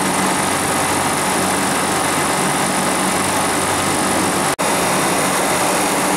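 Refrigeration condensing unit running steadily: the replacement Copeland semi-hermetic compressor humming under the even rush of the condenser fans. The sound drops out for an instant about four and a half seconds in.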